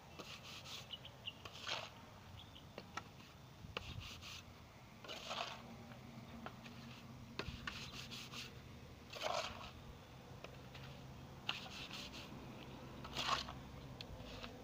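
Hand trowel scraping and spreading damp, gritty cement mix over a rebar frame. Short gritty scrapes, four louder ones about four seconds apart, with lighter scratches between.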